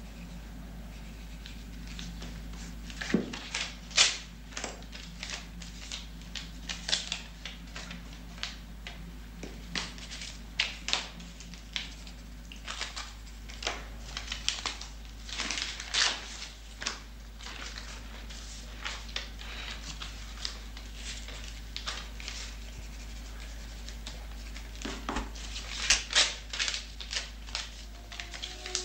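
Pencil scratching on paper amid small breakfast-table noises: a biscotte crunching, and paper and crockery handled. They come as irregular short scratches and clicks, busiest about three to four seconds in and again near the end.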